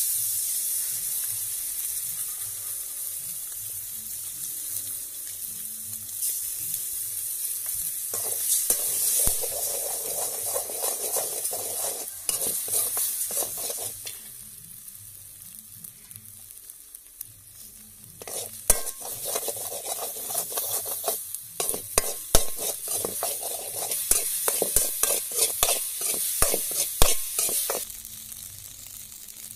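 Beaten eggs sizzling in a large metal pan with shallots and green chilli, while a slotted metal spoon stirs and scrapes them across the pan in rapid strokes. The scraping comes in two long spells, with a lull of a few seconds near the middle where only the frying hiss is heard.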